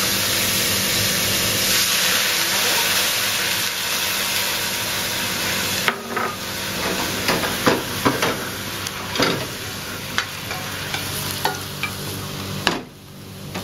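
Garlic and oyster sauce sizzling in oil in a hot wok while a spatula stirs it. From about six seconds in, the spatula clicks and knocks against the wok over the frying. The sizzle drops away suddenly near the end.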